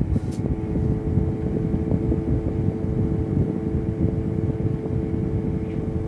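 Fan of a small evaporative air cooler running after switch-on: a steady two-tone motor hum over a rough low rush of air, fairly loud.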